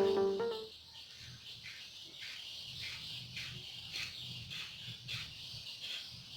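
Repeated high chirps, roughly two a second, over a low steady hum, following a short pitched note at the very start.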